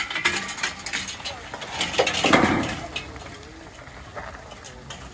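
Men's voices outdoors, talking and calling out, loudest about two seconds in, then quieter.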